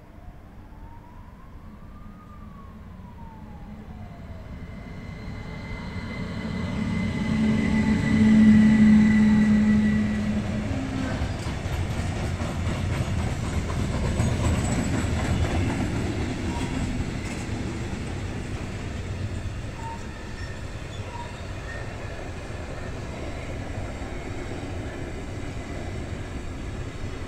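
An electric locomotive hauling a container freight train approaches and passes, with a steady low hum that is loudest about eight to nine seconds in, then the long string of container wagons rolls steadily past on the rails. In the first few seconds a distant siren wails, its pitch slowly rising and falling.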